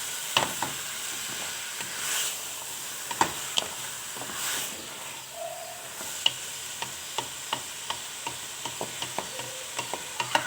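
Chopped squid, chicken pieces and vegetables sizzling in oil in a hot pan as they are stirred, with frequent short clicks and scrapes of the spoon against the pan.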